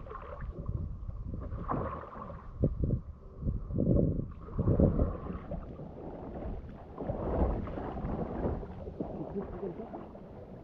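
Water sloshing and splashing around a person wading chest-deep in a dry suit, arms moving through the water beside a kayak. The splashing comes in uneven surges over a low rumble.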